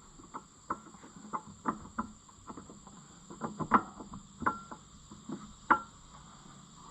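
Light metallic clicks and clinks from hand work on the wheel's bolts and rim, coming irregularly a few times a second, several with a short ring.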